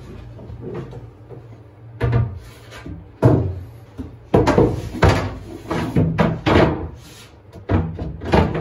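A painted plywood panel being set down and shifted on aluminium support profiles as it is tried for fit: a series of sharp wooden knocks and bumps, about nine, coming irregularly from about two seconds in.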